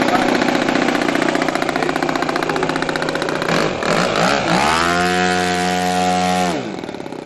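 ASP .70 four-stroke glow engine of a large radio-control model airplane running with its propeller. About halfway through its note dips, then climbs to a steady higher pitch, and near the end it falls away and gets quieter.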